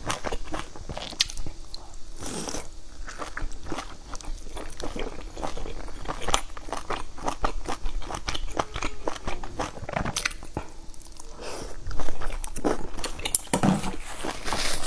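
Chewing and wet mouth sounds of someone eating soft boiled dumplings dipped in chili sauce: a steady run of small wet clicks and smacks, with a few louder mouth noises near the end.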